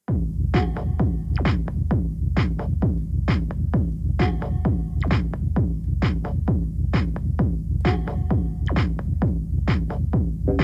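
Techno with a heavy, sustained bass line and a steady drum-machine beat of about two hits a second, cutting in suddenly at the start.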